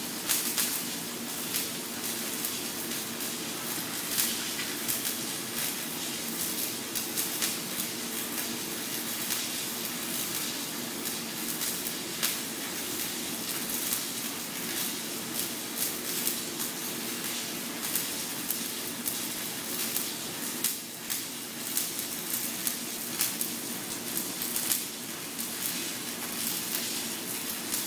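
Electric welding arc on 16-inch heavy-wall pressure pipe, burning without a break: a steady crackling hiss with constant small pops and a low electrical hum.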